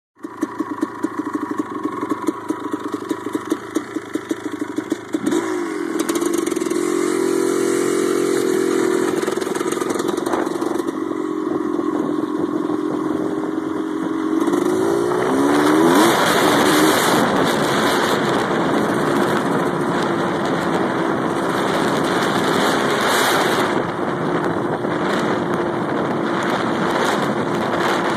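ATK dirt bike engine running with an uneven, pulsing beat, then revving up and pulling away about five seconds in. It runs steadily, its revs swing up and down around fifteen seconds in, and from then on wind and tyre noise on the gravel ride along with it.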